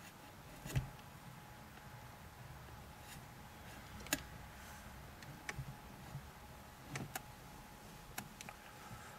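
Scattered light clicks and knocks of tool handling at a car windshield, about six in all at uneven gaps, over a faint steady hum.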